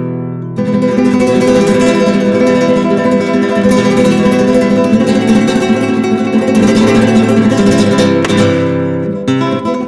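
Flamenco guitar strummed in a steady flow of chords. There is a short lull about half a second in before the full strumming comes back.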